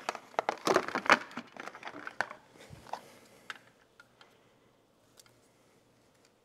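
Crinkling and clicking handling noise as a stick-on LED light strip is positioned and pressed onto a plastic Honda Gold Wing side cover. It is busiest in the first two and a half seconds, then only a few faint ticks.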